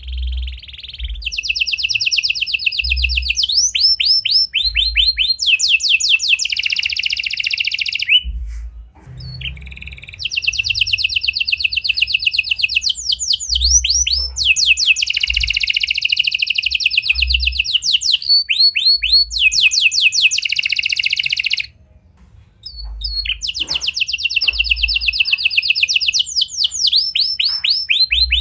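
Red domestic canary singing a long song of fast trills, each a rapid run of the same note repeated, mixed with slower runs of sweeping notes. It breaks off briefly about a third of the way in and again about three-quarters through.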